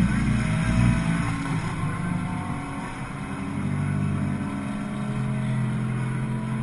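Nissan GT-R's twin-turbo V6 idling close to the microphone, with two brief rises in engine level in the first second before it settles into an even, steady idle.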